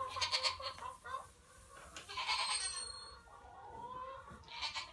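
Pygmy goats bleating, three wavering calls: one at the start, one about two seconds in and a shorter one near the end.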